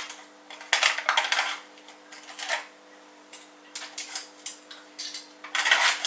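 Gold foil wrapper of a block of butter crinkling and tearing as fingers peel it open, in irregular bursts, the loudest near the end.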